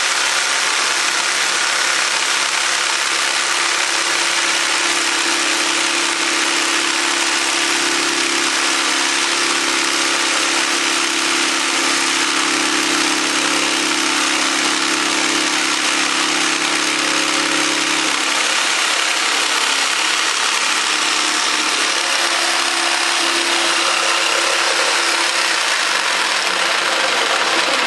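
Freud FJ85 jigsaw running steadily while plunge-cutting into a flat wooden board without a drilled starter hole. The saw is tipped forward on the toe of its shoe until the moving blade breaks through, then cuts along the line. The hum of the motor changes slightly about 18 seconds in.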